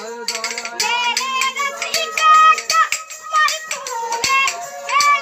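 A boy singing a folk song to the drone of a bowed stick fiddle, with sharp clicks keeping the beat.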